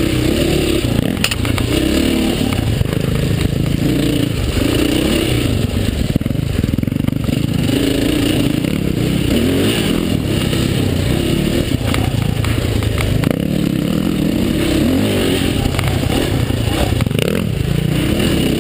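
KTM dirt bike engine being ridden on a trail, its revs rising and falling every second or two as the throttle is worked, with clattering from the bike over rough ground.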